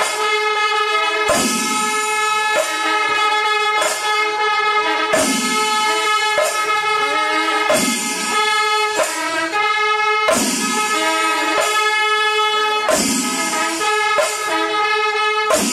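Kerala temple festival ensemble playing: held tones at fixed pitches run throughout, with a sharp percussion stroke about every second and a quarter.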